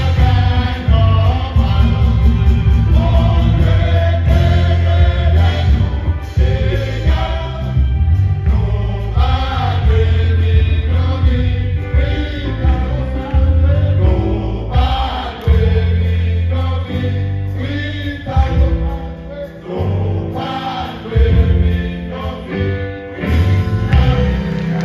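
Men's vocal group singing a gospel song in several voices, backed by a live band with a strong, heavy bass line.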